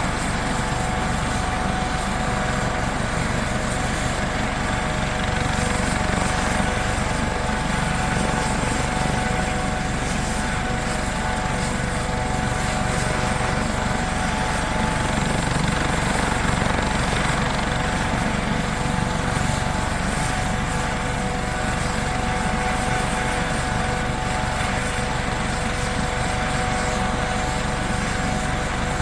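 Helicopter running steadily: a rotor and engine rumble with a constant high whine on top, holding the same pitch and loudness without winding down.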